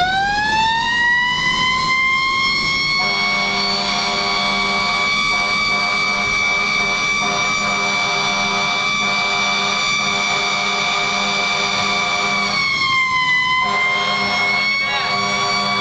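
Fire engine siren winding up from a low pitch to a high steady wail, sagging briefly and recovering near the end. A second, lower steady tone joins about three seconds in, broken by short gaps.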